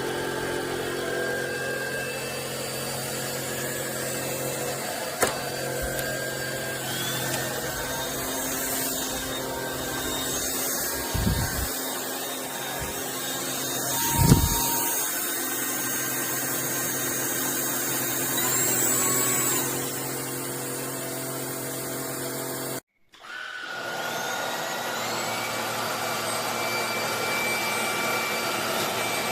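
Lubluelu 25000Pa cordless stick vacuum running steadily, its motor holding several steady tones, with a couple of knocks around the middle. The sound cuts out suddenly for a moment about three-quarters of the way through, then runs on.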